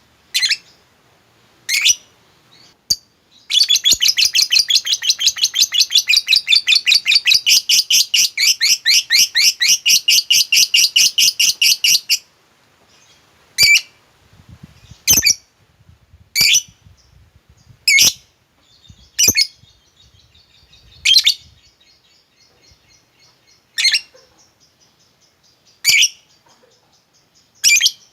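Lovebird giving a long, rapid, chattering trill (the 'ngekek') for about eight seconds, then single sharp high chirps every second or two, with faint quick twittering in the background.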